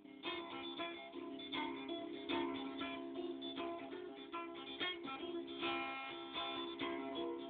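Archtop guitar in an open tuning, played with quick picked and strummed notes over low notes that ring on steadily.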